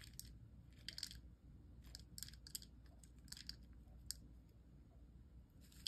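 Faint, scattered crisp ticks and rustles of miniature crumble topping being sprinkled by hand onto a plastic capsule tray, over a low steady room hum.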